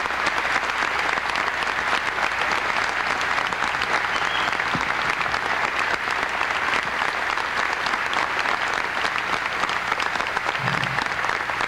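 A large audience applauding: a long, steady ovation of many hands clapping.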